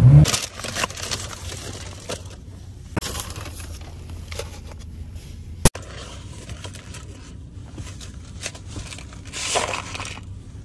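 Paper and cardboard fast-food packaging crinkling and rustling as it is handled, with scattered small clicks, one sharp click about two-thirds of the way through and a louder rustle near the end.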